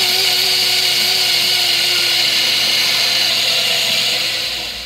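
Countertop blender running steadily, puréeing cooked vegetables with cashews and water into a thick sauce. Its motor hum sags slightly in pitch and winds down near the end as it is switched off.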